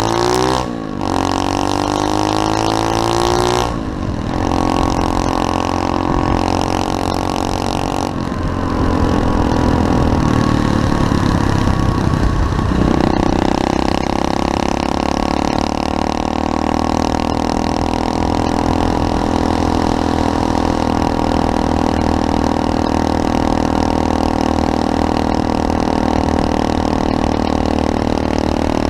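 SSR 125cc semi-automatic pit bike's single-cylinder engine accelerating hard, its pitch climbing and dipping briefly at each upshift about a second, four and eight seconds in, then running steadily at high revs for the rest of the ride.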